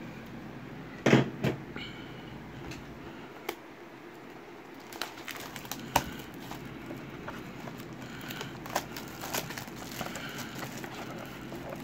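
A trading-card hobby box being handled, with a couple of sharp knocks about a second in. Then its plastic shrink-wrap crackles and crinkles as it is torn off and the cardboard flap is opened.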